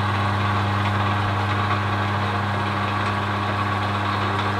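Optimum Optiturn 3008G metal lathe running, its chuck spinning a brass rod, with a steady motor hum.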